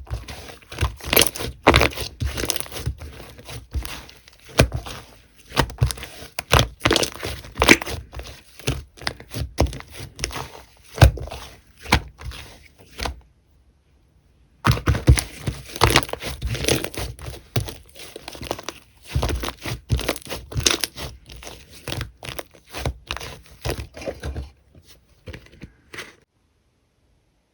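Slime being squeezed and kneaded by hand, giving rapid crackling and popping. It pauses for about a second and a half near the middle and stops shortly before the end.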